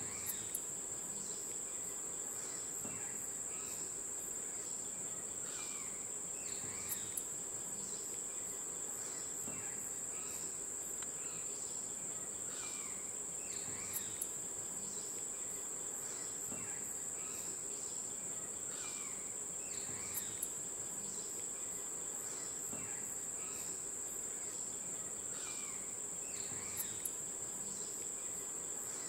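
A steady, high-pitched insect chorus of crickets or cicadas, with short falling chirps layered over it and a pair of sharp clicks about every six and a half seconds.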